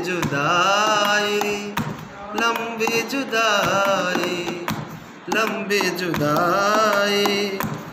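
A man singing without accompaniment: long, slow, ornamented held notes in a Hindi film-song melody, broken by short breaths between phrases. A few sharp taps sound among the notes, from his hands on the desk.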